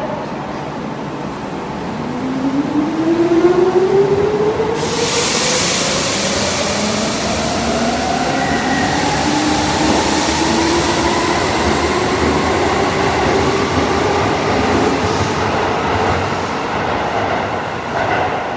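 Keisei 3600 series field-chopper-controlled electric train accelerating away from an underground platform. Its motor and gear whine rises steadily in pitch as it gathers speed over a rumble of wheels. A loud rushing noise comes in suddenly about five seconds in and carries on as the cars pass.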